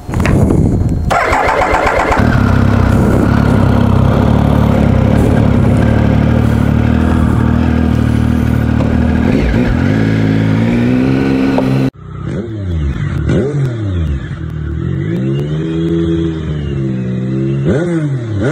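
Triumph Sprint ST 1050's three-cylinder engine starting about a second in and idling steadily, then rising in pitch. After an abrupt cut, it is revved up and down several times.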